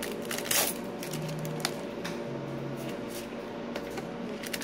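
Foil trading-card booster pack wrapper being crinkled and torn open by hand, with a few sharp crackles.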